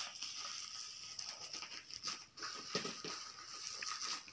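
Plastic bubble wrap rustling and crinkling as a small package is unwrapped by hand, with a few sharper crackles.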